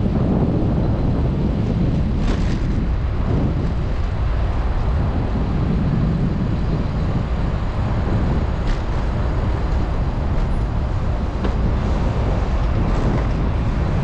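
Wind buffeting an action camera's microphone on a moving bicycle: a steady low rumble, with a few faint brief clicks.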